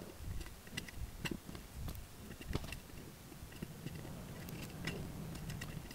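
Faint, irregular clicks and taps of a laptop keyboard and trackpad being used.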